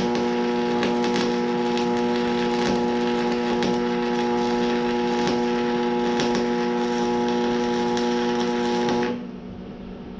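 Electric arc welding a steel mount: a steady electrical buzz under irregular crackling and spitting from the arc, which stops abruptly about nine seconds in.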